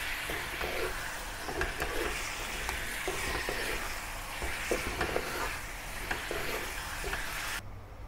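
Chicken pieces sizzling in a hot wok as they are stirred and tossed with a wooden and a silicone spatula, with frequent short scrapes and knocks of the spatulas against the pan. The sizzle cuts off abruptly near the end.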